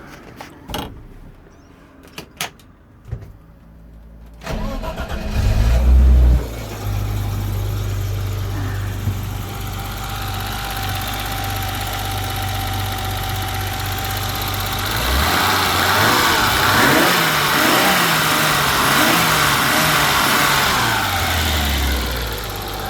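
A few sharp clicks, then a newly installed engine, fitted with new spark plugs, cranks and starts about four and a half seconds in, flaring loudly for a moment before settling to a steady idle. From about fifteen seconds it is revved up and down several times, then drops back to idle near the end.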